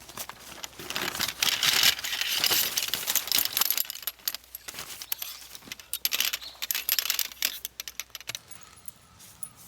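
Small metal items jingling and clinking in a dense, busy rattle as camping gear is handled. It starts about a second in and eases off near the end.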